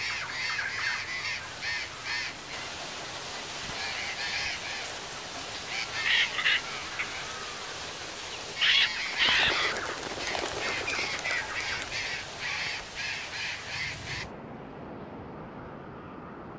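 A flock of burrowing parrots calling, with short squawks repeated in quick runs and louder bouts around six and nine seconds in. The calls stop suddenly about fourteen seconds in, leaving a faint steady hiss.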